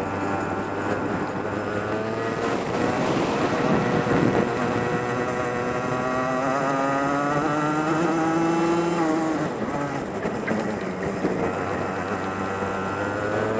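Onboard sound of a DMAX racing kart's engine at speed. The engine note climbs steadily for about five seconds, drops sharply as the throttle comes off a little after halfway, then runs on lower and steady.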